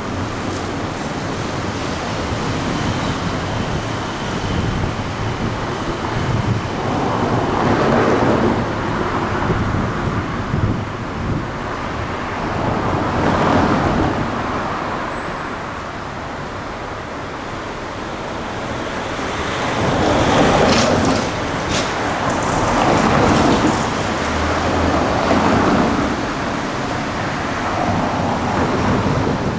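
Outdoor street noise: wind buffeting the camcorder's microphone in repeated gusts over a steady hiss of traffic.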